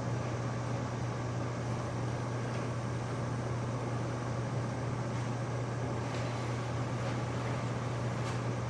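Steady low mechanical hum with an even hiss over it, like a ventilation or air-conditioning unit running, with a few faint ticks about five, six and eight seconds in.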